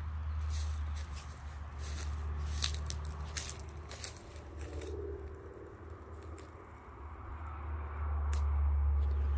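Footsteps crunching and scraping over debris, a scatter of sharp clicks, over a steady low rumble.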